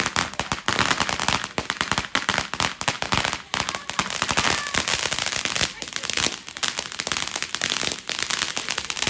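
A firework going off in a dense, continuous run of sharp crackles and pops, many cracks a second.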